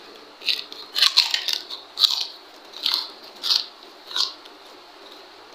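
Crunching of crisp fried papad sticks being bitten and chewed: a string of about seven sharp crunches, one every half second or so, stopping after about four seconds.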